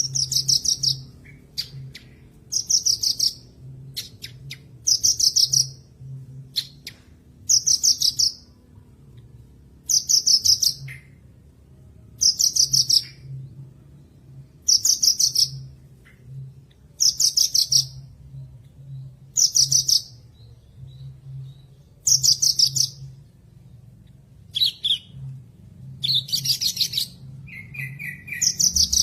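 Horsfield's bush lark (branjangan) singing: a fast, high, buzzy trill phrase about a second long, repeated roughly every two and a half seconds, with short softer notes between the phrases.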